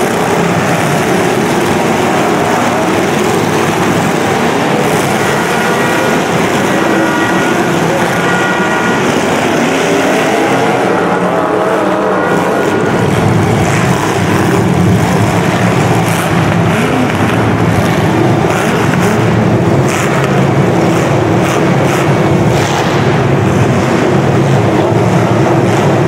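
Several demolition derby cars' engines running and revving loud at once, with a heavier engine drone from about halfway on. From about eleven seconds in there are repeated sharp bangs of cars crashing into each other.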